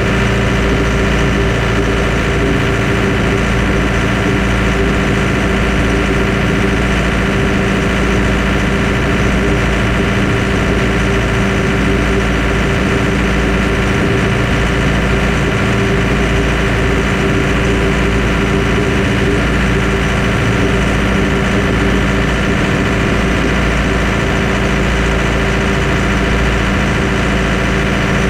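An engine running steadily at one constant speed, with no change in pitch or level.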